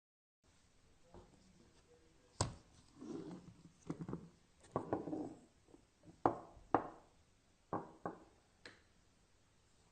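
Slime being squeezed and pressed by hand: a run of wet squelches broken by sharp pops and clicks, starting after a moment of silence and ending about a second before the end.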